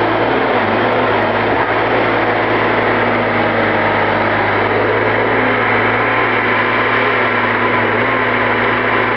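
Prentice knuckleboom log loader's diesel engine running steadily at working speed, with an even hum and no change in pitch as the boom swings.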